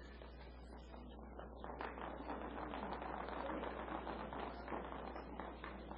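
Faint audience crowd noise, an irregular rustling murmur that swells a little about a second and a half in, over a steady electrical hum from the sound system.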